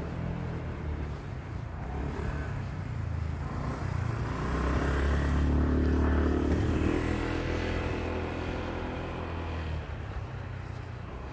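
A motor vehicle's engine passing by: it grows louder over the first few seconds, is loudest around the middle, and fades away near the end.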